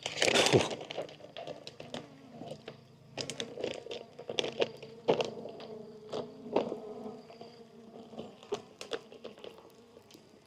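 Stingless bees humming close by, with repeated clicks and knocks from the hive boxes being handled and pried apart. A louder scraping burst comes right at the start.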